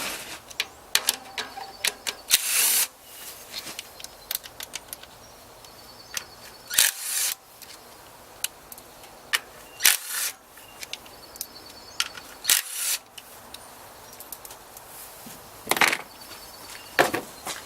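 Scattered light clicks and knocks of hand work on an engine's coil-on-plug ignition coils, with about six brief scratchy rubbing sounds spread through.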